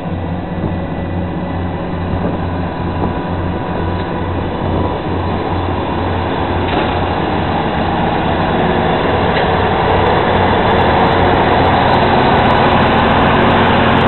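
Deutz-Fahr M 2680 combine harvester running under load while harvesting grain: a steady low engine hum under machinery noise, growing gradually louder and harsher over the second half.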